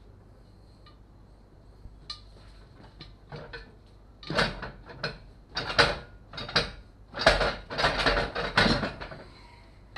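Knobby motorcycle tyre being worked onto its rim by hand on a tyre-mounting stand: a few scattered clicks, then a run of loud scraping rubs and metal clinks from about four to nine seconds in as the tyre is pushed and turned over the rim.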